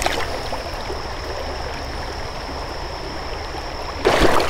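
Creek water flowing steadily around a wading angler's legs, with a louder rush of water noise about four seconds in.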